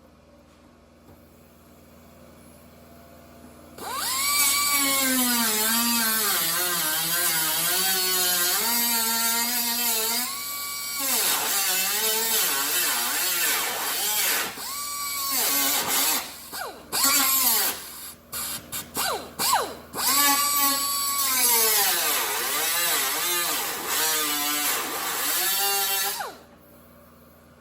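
Handheld power tool, a drill or grinder, working sheet metal. It starts about four seconds in and runs with its pitch dipping and recovering as it loads up. In the middle it comes in several short trigger bursts, then it runs again and cuts off suddenly near the end.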